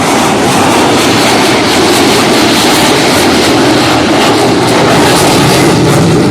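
Loud, steady jet engine noise from the Blue Angels' formation of F/A-18 Super Hornets flying past together.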